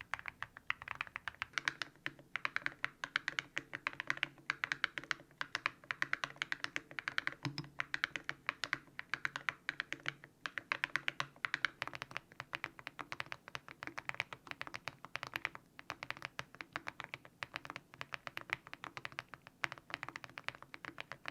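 Mechanical keyboard being typed on quickly: a dense run of key clicks, several a second, broken by short pauses.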